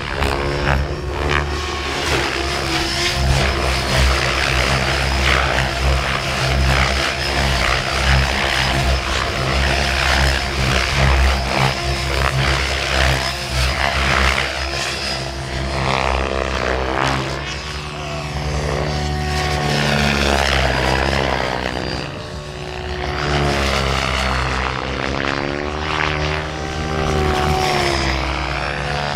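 Two Mikado Logo 700 electric RC helicopters flying 3D aerobatics: main rotor blades whirring with the electric motors' whine. In the second half the pitch rises and falls as the helicopters swoop past and load up the rotors.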